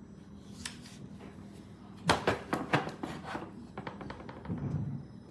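A run of sharp knocks and clatter of hard objects being handled, starting about two seconds in with the loudest knock and thinning out over the next two seconds, followed by a softer low rumble.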